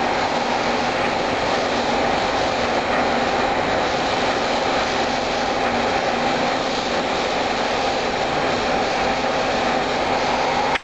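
Oxy-fuel cutting torch of a CNC flame-cutting machine burning with a steady hiss, its flame held on one spot to preheat the steel plate to red heat before the cut continues.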